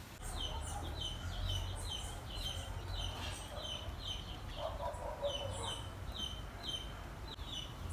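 Chickens calling: a steady run of short, high, falling peeps, two or three a second, with a spell of lower clucking about five seconds in.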